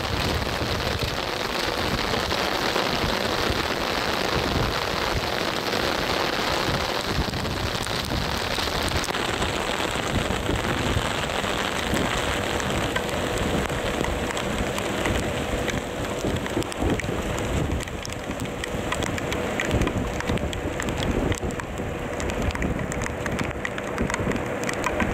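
Rain falling on a rain-soaked camera microphone: a steady hiss full of crackling drops over a low rumble, dulled by the wet mic, with a faint steady hum joining about nine seconds in.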